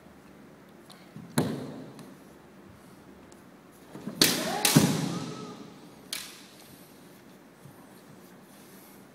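Kendo sparring: bamboo shinai strikes and knocks on a wooden floor. A single sharp knock comes about a second and a half in, the loudest cluster about four seconds in is a shinai strike with a short shout (kiai), and another knock comes about six seconds in.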